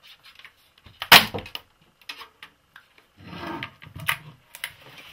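Sheet-metal frame of an LCD panel being pried and handled: a loud metallic snap about a second in, then a short scrape and a few light clicks.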